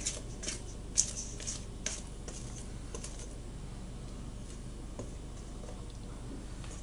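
Light clicks and taps from a stainless steel mixing bowl and plastic spatula as wet sourdough dough is tipped and scraped out onto a countertop. About eight sharp ticks fall in the first three seconds, then only occasional ones over faint steady room tone.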